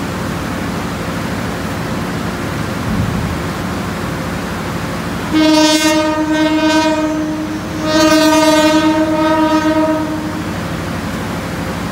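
CC 201 diesel-electric locomotive sounding its S35 air horn in two long blasts of about two seconds each, a few seconds in, over the steady low rumble of its diesel engine.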